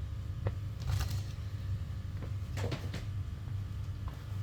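A few light knocks and clicks of things being handled, with a small cluster near the middle, over a steady low hum.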